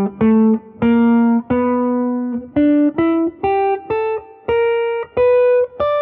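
Guitar playing a single-note pentatonic scale run up the neck, about a dozen notes picked one at a time and climbing in pitch.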